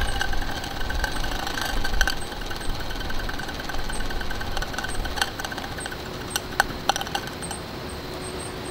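Toy live-steam crane with a double-acting oscillating cylinder running fast as it winds up a small load, a quick, even mechanical rattle. The rhythm fades out near the end, with a few sharp clicks just before it stops.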